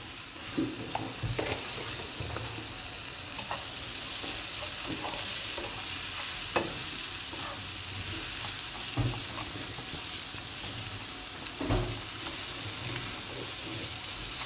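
Cabbage and onion stir-fry sizzling steadily in a non-stick frying pan while a spatula stirs it, with a few sharp knocks of the spatula against the pan, the loudest about six and a half and nearly twelve seconds in.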